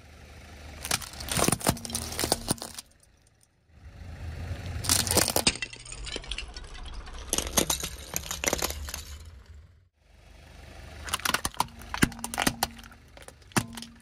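Car tyre rolling slowly over Rubik's cubes and other hard plastic toys, crushing them with runs of sharp cracks and snaps over a low rumble of tyre and engine. The sound comes in three separate takes.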